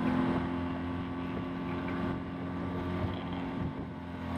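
Engine of a motor launch running steadily at cruising speed as it follows the rowing boats, a constant low hum over a rush of wind and water.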